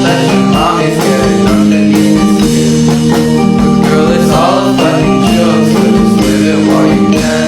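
A sped-up pop song plays continuously, with held notes over a steady beat.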